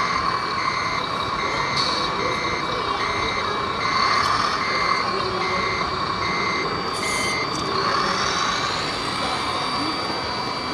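An RC truck's reversing beeper sounding steady evenly spaced beeps, a bit under two a second, over the running whine of its drive, the beeps stopping about seven seconds in as it stops backing up.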